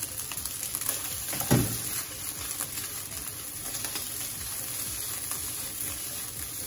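Egg fried rice sizzling in a wok over a gas flame as the pan is tossed, with the rice scraping and rustling against the pan and small clicks throughout. A single louder knock about a second and a half in.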